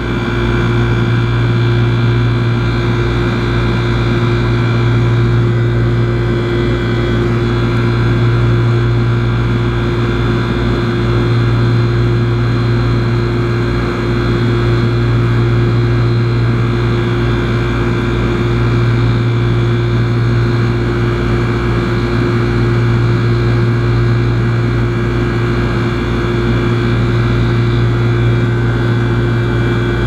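Outdoor air-conditioner condensing unit running: the compressor and condenser fan make a steady, even hum. The system is overcharged and pulling high amps while refrigerant is slowly bled off its high side.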